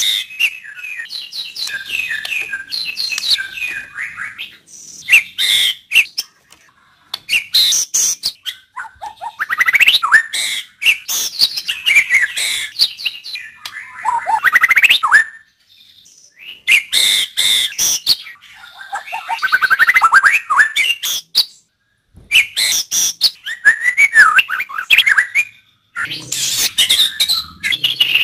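White-rumped shama (murai batu) singing: bursts of varied gliding whistles and sharp clicking notes, separated by short pauses.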